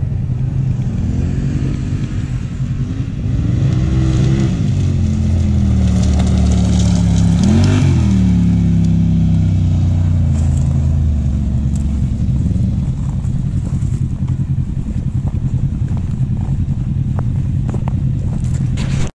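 Off-road vehicle engines, a quad's and a side-by-side's, running close by: the engine note rises and falls several times as the throttle is worked, once sharply a little before halfway, then settles to a steady idle.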